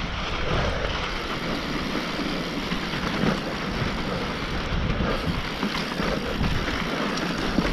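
Wind buffeting the microphone over the rumble and rattle of a mountain bike rolling fast down a steep, loose dirt trail, steady throughout.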